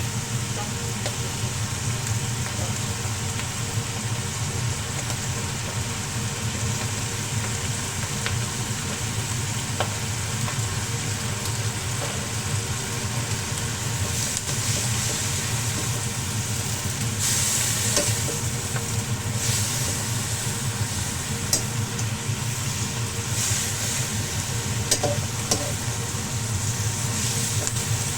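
Kana (Chinese kale) and salted fish sizzling in a hot pan as they are stir-fried. The sizzle is continuous over a steady low hum, with a few light clicks, and grows louder in surges in the second half.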